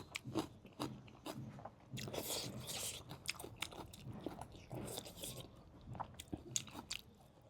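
Close-up eating sounds: a person chewing and biting into food with wet, crunchy clicks, a few crunches a second.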